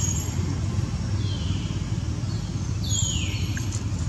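Short high-pitched animal calls, each sliding down in pitch, three of them about a second and a half apart, the last the loudest, over a steady low rumble.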